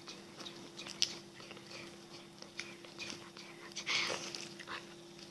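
Slime being handled in the hands: soft, scattered sticky clicks and crackles, with a sharper click about a second in and a brief rustle near four seconds, over a faint steady hum.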